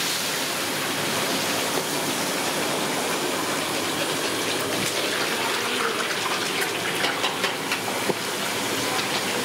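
Chicken pakoda deep-frying in several kadais of hot oil: a steady, busy sizzle, with a few clinks of metal skimmers against the pans between about six and eight seconds in.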